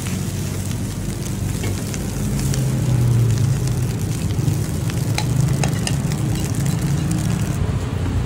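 Metal spatula stirring and scraping fried rice in a hot steel wok, with a steady frying sizzle over a low rumble. A few sharp clinks of spatula on wok, two of them about five seconds in.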